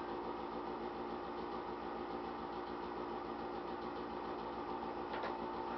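Steady mechanical hum from a small motor, holding several even tones; a couple of faint taps a little before the end.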